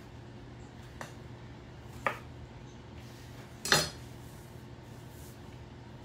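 Kitchen knife knocking against a wooden cutting board while slicing bell peppers into strips: a few sharp, separate knocks about a second apart, the loudest near four seconds in.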